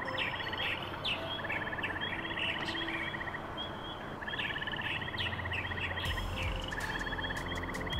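Birds singing by a reedy pond: repeated short high chirps and rapid trills each lasting about a second. A low steady rumble joins about six seconds in.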